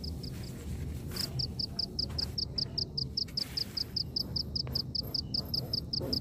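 A cricket chirping in a steady run of short, high pulses, about five a second, breaking off briefly near the start; a low steady rumble underneath.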